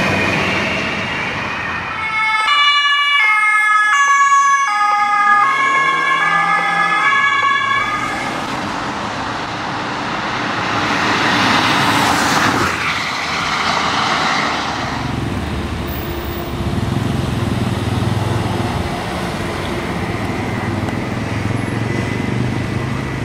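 German police cars on emergency runs: a two-tone siren alternates between two pitches for the first several seconds. Then comes the rush of a car passing on a wet road, loudest around halfway, and a steady low engine hum near the end.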